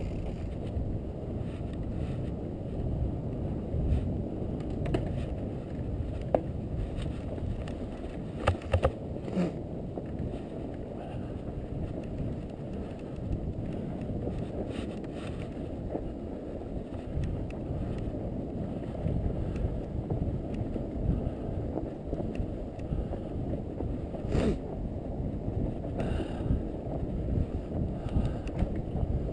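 Fat bike riding through snow: a steady low rumble of wind on the microphone and the wide tyres rolling, with a few sharp clicks and rattles from the bike, a cluster of them about a third of the way in and one more near the end.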